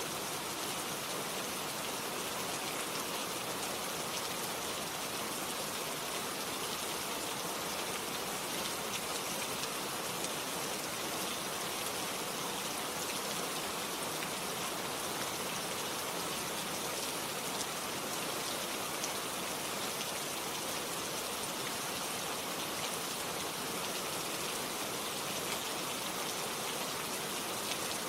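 Steady rain, an even hiss of many drops falling on a surface, with no change in strength.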